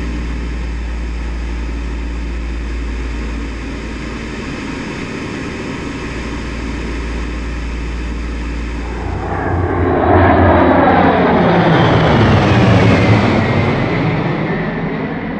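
Steady drone of a P-38 Lightning's twin Allison V-12 engines heard from on board in formation flight. About nine seconds in, a formation of P-38 Lightnings passes overhead, its engine note growing louder and falling in pitch as the planes go by.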